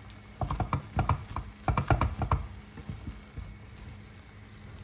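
A quick run of sharp clicks and knocks from cookware at a pot of boiled meat on the hob, over a faint steady hum; the clicks die away about two and a half seconds in.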